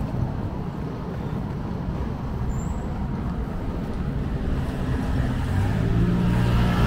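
Road traffic rumble on a city street. A vehicle engine's low hum comes in and grows louder over the last second or two.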